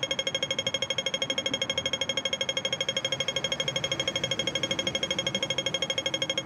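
Pedestrian crossing signal's beeper sounding its rapid walk-phase beep, over ten identical beeps a second, with faint street noise underneath.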